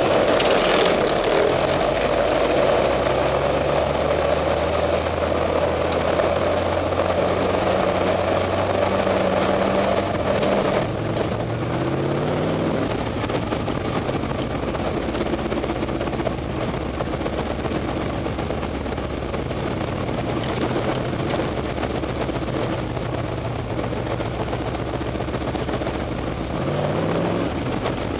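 Open-wheel dirt-track race car's engine heard onboard, running hard around the oval. The engine note drops and then climbs again as the car accelerates out of the turns, about a third of the way through and again near the end.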